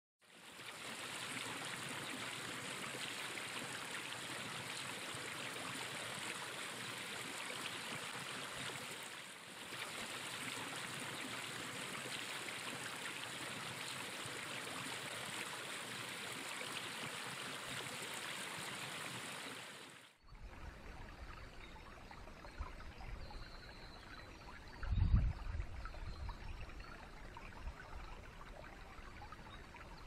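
Small forest creek running: a steady rush of water, then about twenty seconds in a sudden cut to a quieter babble of water with a low rumble underneath. About five seconds after the cut there is a single dull thump.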